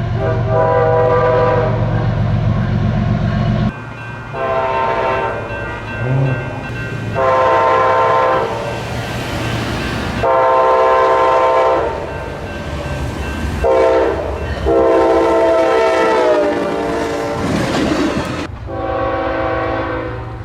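Locomotive air horns sounding a string of separate blasts, each one to two and a half seconds long, from several clips cut one after another. A heavy low train rumble runs under the first blasts, and one blast slides down in pitch as the train passes.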